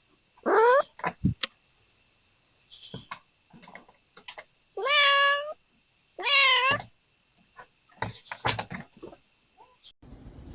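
A domestic cat meowing three times: a short rising meow about half a second in, then two longer meows about five and six seconds in. Light clicks and knocks fall between the meows.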